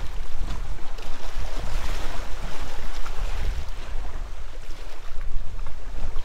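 Small waves washing and splashing against a rocky shoreline, with a swell of splashing about two seconds in, under heavy wind rumble on the microphone.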